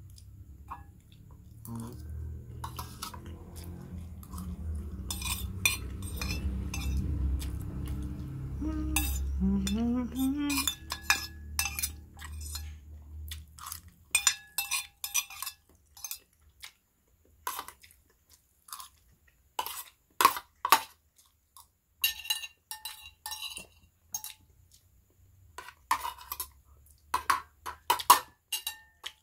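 Cutlery clinking and scraping against a plate as the last of the noodles is scooped up, in quick irregular clinks that fill the second half. A low rumble runs under the first half and fades out about halfway through.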